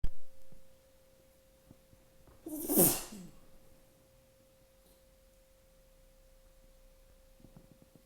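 A person sneezing once, hard, about two and a half seconds in: a sharp burst falling into a voiced 'choo'. A short knock sounds right at the start, and a faint steady tone runs underneath throughout.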